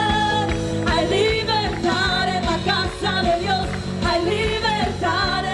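Live praise band playing a Spanish-language worship song, with a singer's voice over the band.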